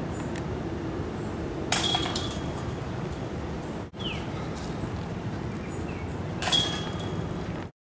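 Two putted golf discs striking the hanging chains of a disc golf basket, each a sudden metallic chain rattle that rings briefly, about two seconds in and again near the end.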